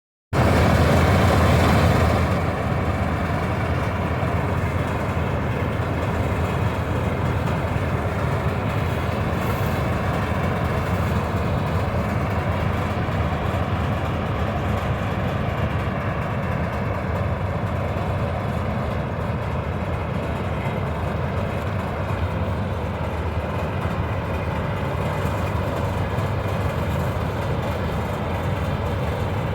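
Preet 987 combine harvester running steadily while harvesting, its diesel engine and threshing machinery making a continuous mechanical noise. It is a little louder for the first two seconds, then holds steady.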